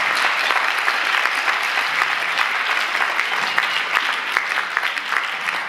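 Audience applauding, many people clapping at once.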